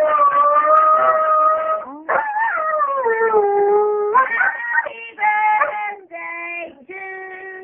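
A dog howling along with a toy squeezebox (small accordion). A long howl slides down in pitch about two seconds in, and shorter, steady-pitched notes follow in the second half.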